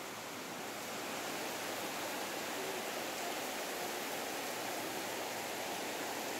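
Heavy rain pouring steadily onto a gravel yard and open ground, an even rushing hiss.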